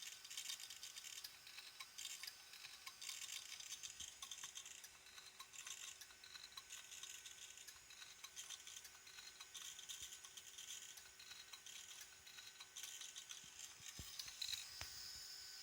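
Opened hard disk drive running with a faint, irregular scratchy grinding over a faint steady hum, a couple of light knocks near the end. The grinding goes with errors reported by the drive, which the owner takes for a fairly serious physical failure.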